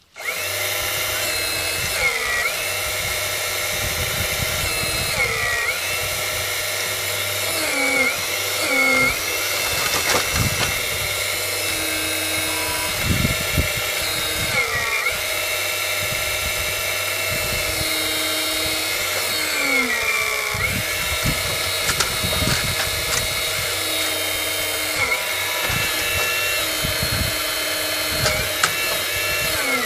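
Hydraulic pump of a 1:5 scale radio-controlled Menzi Muck A91 walking excavator whining steadily. It starts abruptly and dips in pitch for a moment every few seconds as the digging arm's cylinders take load, with a few short knocks.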